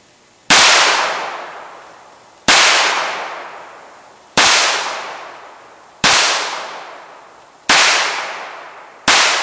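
Six handgun shots from a revolver, evenly paced about a second and a half to two seconds apart, each one loud and sharp and dying away over about a second and a half.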